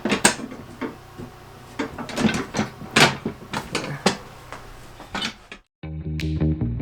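Irregular clicks and knocks of hand tools on the steel brackets of an ATV snow-plow mount while its bolts are tightened. Guitar music starts suddenly near the end.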